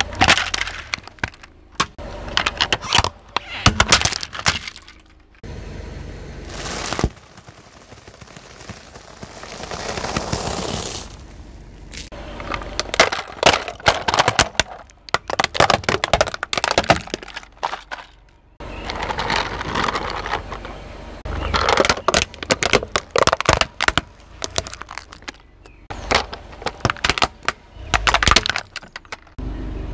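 Hollow plastic toy trucks cracking and snapping under a slowly rolling car tyre, recorded close at ground level: clusters of sharp cracks as each toy gives way. A stretch of steady hiss comes around the middle.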